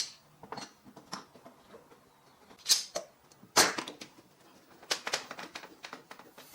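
Scattered light knocks and clicks, with a few short scraping or brushing noises, like tools or pieces of wood being handled on a bench.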